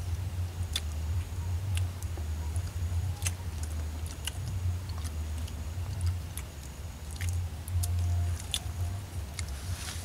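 Boiled mud crab being eaten by hand: irregular sharp clicks and crunches of shell being cracked and picked apart, with chewing, over a steady low hum.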